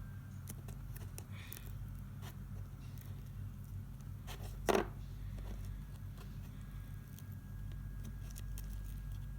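Hands playing with slime, giving scattered small clicks and pops, with one louder pop about five seconds in, over a steady low hum.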